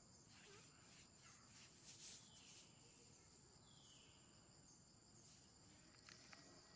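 Near silence outdoors, with faint steady high-pitched insect droning and a few faint chirps, including one short falling call about four seconds in.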